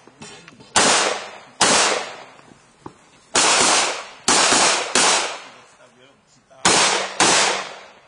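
Handgun shots, seven in all, fired in uneven groups: two, then three, then two. Each is a sharp crack that rings off over about half a second.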